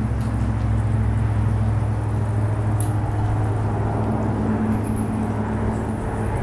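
A steady low mechanical hum, with a few faint, short, high chirps above it.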